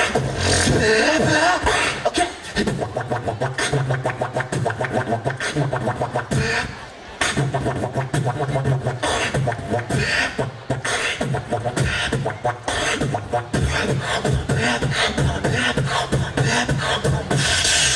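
Solo beatboxing through a handheld microphone and stage PA: fast vocal kick and snare sounds over a sustained low bass hum, with a short break about seven seconds in before the rhythm picks up again.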